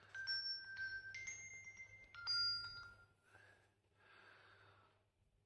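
A short run of three held electronic chime tones, each at a different pitch, followed by two soft breathy swishes.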